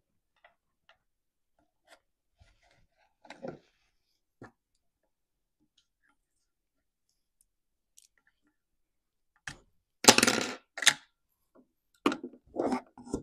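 Faint scattered clicks and light taps of a wire hook and small parts being worked inside a Stihl MS250 chainsaw while its fuel filter is replaced. About ten seconds in come louder clunks and rattles, and more follow near the end.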